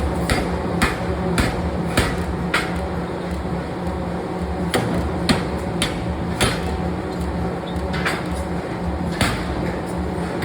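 Sharp metal strikes in a metalworking shop: about one every half-second or so at first, then at irregular intervals, over a steady hum of running machinery.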